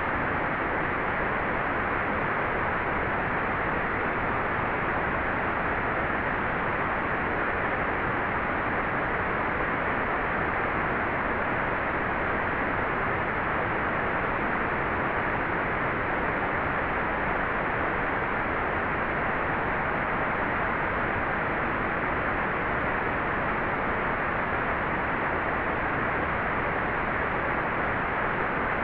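Hair dryer blowing steadily: an even, unchanging rush of air noise with no breaks or changes in pitch.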